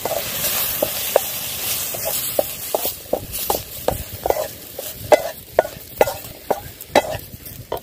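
Slotted wooden spatula stirring shallots, tomatoes and ground spices frying in oil in a metal pan, with irregular knocks and scrapes against the pan over a faint sizzle.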